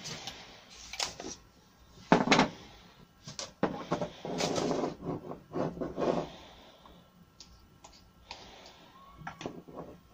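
Irregular knocks, clicks and rustles from handling paint-straining gear on a bench: a paper strainer cone, plastic cups and a wooden stirring stick, with a few longer rustly bursts among the short knocks.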